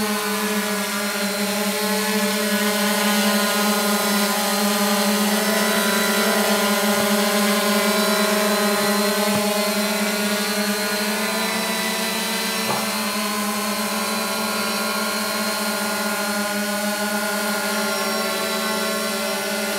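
Multirotor drone's electric motors and propellers humming steadily as it hovers in place, the pitch wavering slightly.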